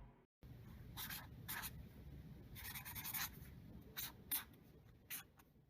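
A few faint, short scratching or rubbing strokes, like a pen or something dry rubbing on a surface.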